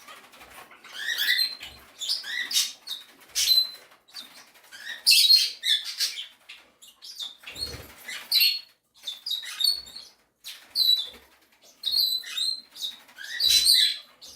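Cockatiels chirping and calling: short, high chirps and whistles repeated every second or so, some overlapping.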